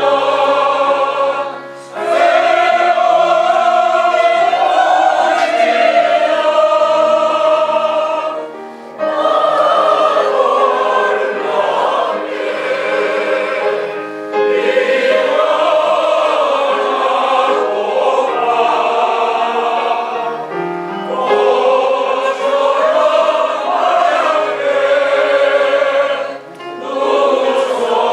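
A group of voices singing a Korean art song (gagok) together, in long phrases broken by short breaths about every five to seven seconds.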